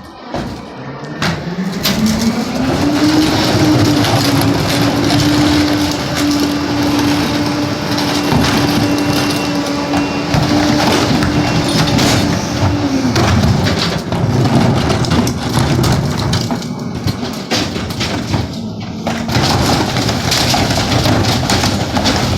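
Pak-Mor 25-yard rear-loading garbage truck on a CCC chassis revving up to drive its hydraulic packer. The packer blade compacts heavy trash with cracking and snapping, and the engine drops back toward idle about 13 seconds in as the cycle ends.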